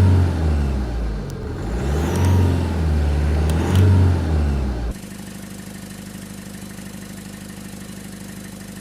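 Car engine revved up and down several times, then, about five seconds in, steady idling with a fast, even pulsing from the exhaust. It is presented as the sound of gases escaping through a small crack in the exhaust.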